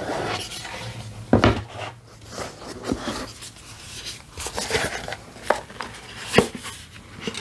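A cardboard album box and its photobook being handled: scattered taps, knocks and paper rustling as the box is opened and the book and card inserts are slid out. The loudest knock comes about a second and a half in.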